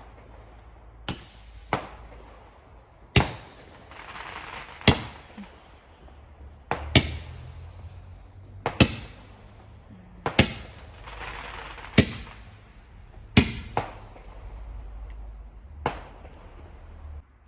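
A multi-shot consumer firework firing: about ten sharp bangs one to two seconds apart, with a fizzing hiss between some of them.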